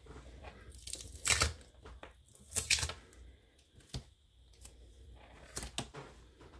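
Clear tape being peeled off a tabletop, two short tearing rips about a second apart, followed by soft rustling and small clicks as the nylon macrame cords are handled.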